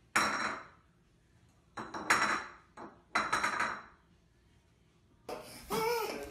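A ceramic food bowl scraping and clattering on a tile floor as a cat pushes it with its head, three times, each with a light ringing.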